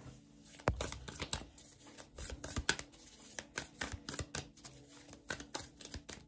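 A deck of tarot cards being shuffled by hand: a run of irregular quick clicks and flicks of card against card, starting about a second in.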